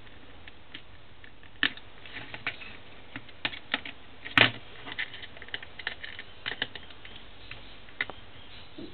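Irregular light clicks and taps of hands handling the small parts of a paper-and-cardboard model M1911 pistol against a desk, with one louder knock about four and a half seconds in.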